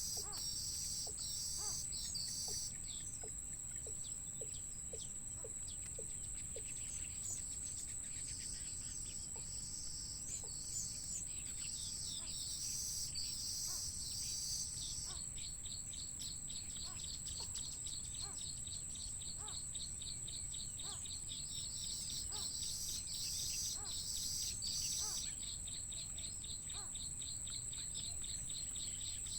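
Short bird chirps repeated many times over a steady high trilling of insects.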